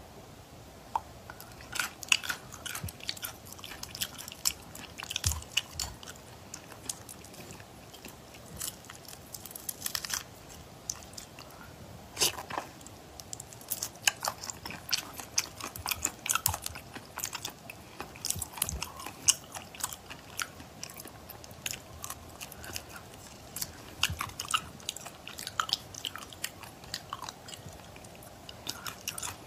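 A person biting and chewing whole shrimp in their shells, with many sharp, irregular crunches and cracks as the shells break.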